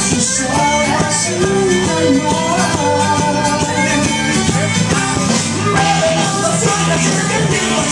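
Loud dance music with singing, played over a sonido (mobile DJ sound system).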